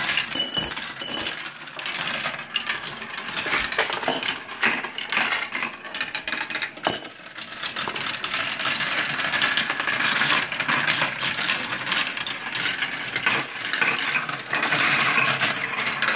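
Many marbles rolling and clattering down a plastic marble-run track at once, a continuous dense rattle of clicks and knocks against the plastic chutes, funnels and wheels.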